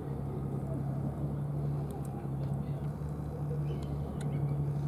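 A steady low engine drone runs throughout, with faint small clicks of a cat chewing wet food.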